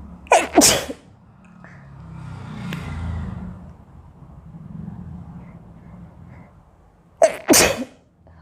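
A woman sneezing twice, about seven seconds apart, each sneeze a sharp two-part burst, set off by coriander powder in her nose. Softer breathing lies between the sneezes.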